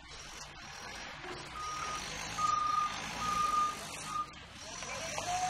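Propane forklift's back-up alarm beeping three or four times with a steady single-pitch tone, over the forklift's engine running.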